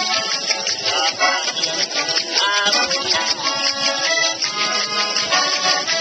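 Small button accordion playing a melody of quick, short notes.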